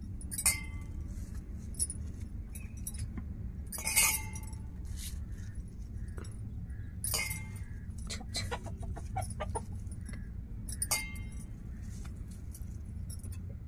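Kitchen knife cutting soaked soya chunks over a steel plate, with light clinks of blade against metal. Short hen clucks come through four times.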